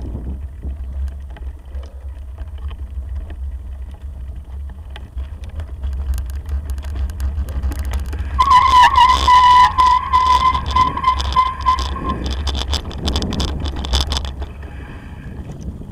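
Wind rumbling on the microphone of a moving bicycle, with rattling and crunching clicks from the tyres and frame on a rough gravel track. About eight seconds in, a bicycle brake squeals on one steady high note for about three and a half seconds as the bike slows.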